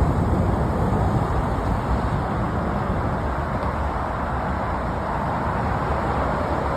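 Steady low rumbling outdoor noise with no clear events in it.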